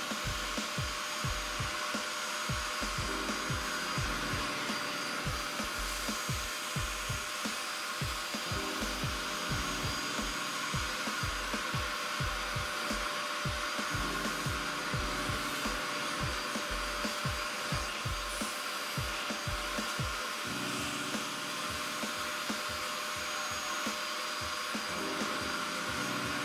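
A vacuum drawing air through a metal carpet wand with a clear plastic extraction head pulled across truck carpet: a steady rushing hiss with a faint whine. It stops abruptly at the very end. Underneath is background music with a steady beat and bass line.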